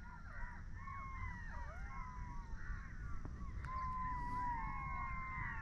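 Several birds calling at once, a tangle of overlapping whistled notes that glide up and down, over a low steady rumble.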